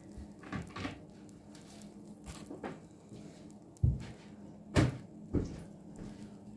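Hollow plastic knocks and thumps of a washing-up bowl being handled and set down in a sink: a few soft ones at first, then three louder knocks about four to five and a half seconds in.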